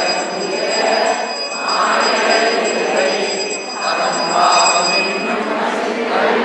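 Temple bell ringing continuously, a steady metallic ringing that stops about five seconds in, over the hubbub of a crowd of devotees.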